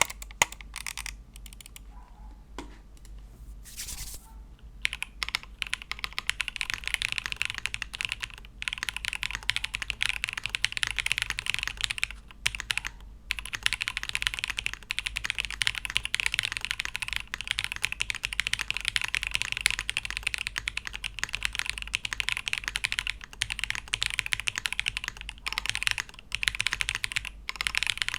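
Typing on a Chilkey ND TKL mechanical keyboard with Kailh Blue Lotus switches: a few separate keystrokes at first, then fast continuous typing from about five seconds in, broken by a couple of brief pauses.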